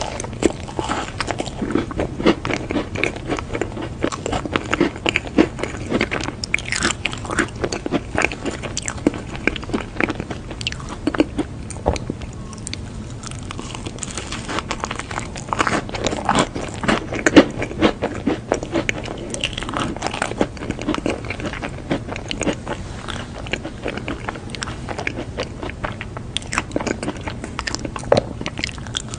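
Close-miked biting and chewing of a green-glazed pastry with a crisp crust: a dense run of small crunches and mouth clicks, busiest in the first several seconds and again around the middle.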